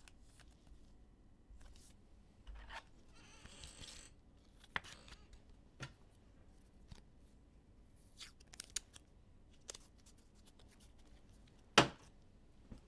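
Quiet handling of trading cards and plastic card sleeves: scattered light clicks and taps, a short rustle about three seconds in, and a sharper click near the end.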